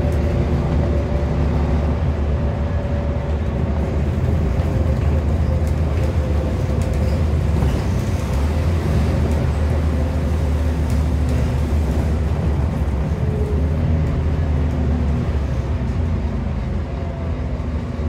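Scania N230UD double-decker bus heard from inside while under way: its Scania DC09 five-cylinder diesel gives a steady low drone, with a faint whine above it that drifts slowly in pitch.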